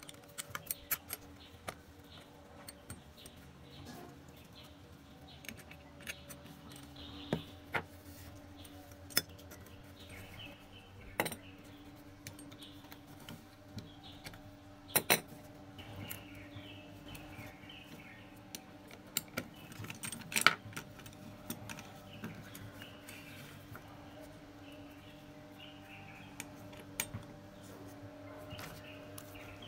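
Small metal parts of a Life Card .22 WMR toy replica gun clicking and clinking as its spring-loaded mechanism and frame are fitted together by hand, with a few sharper clicks standing out from the light handling noise.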